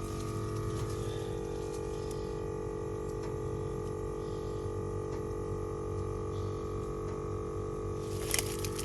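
VIAIR 450P portable 12-volt air compressor running steadily with a constant hum as it inflates a 10-ply trailer tire past about 45 psi. A short click near the end.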